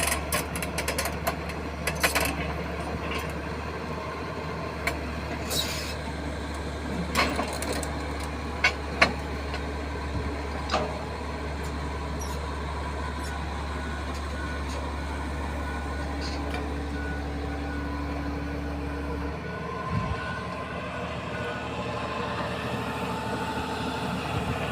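An engine running steadily at idle, with scattered sharp knocks and clicks. The low engine drone stops abruptly about 19 seconds in.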